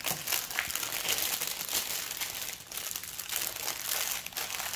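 Clear plastic packaging crinkling as it is handled: a continuous crackle of many small clicks.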